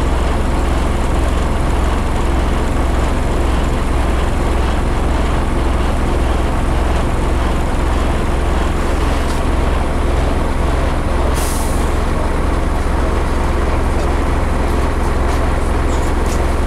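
Interior of a Scania CN270UB city bus under way: steady low drone of its diesel engine with road and body noise. A brief hiss of air cuts in about eleven seconds in.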